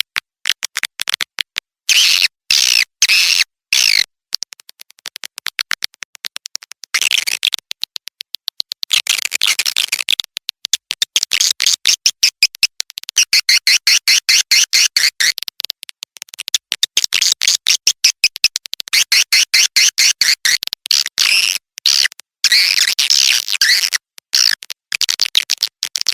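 Swiftlet lure-call recording: edible-nest swiftlets' rapid trains of dry clicks, overlaid every few seconds by stretches of high twittering chirps that include the calls of young birds.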